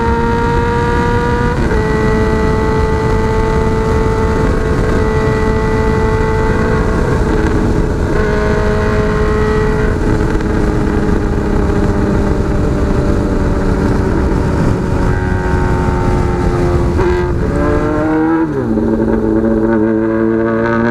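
Honda Hornet CB600F inline-four running through a megaphone exhaust at steady cruising revs, with wind rushing over the microphone. The pitch steps once with a gear change about two seconds in. Near the end the revs fall steeply as the bike slows, and it settles into a lower, steady idle.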